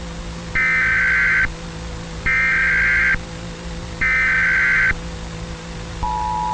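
Emergency Alert System SAME header: three bursts of warbling digital data tones, each just under a second long with short gaps between them. Near the end the steady two-tone EAS attention signal begins. A steady hum and hiss run underneath.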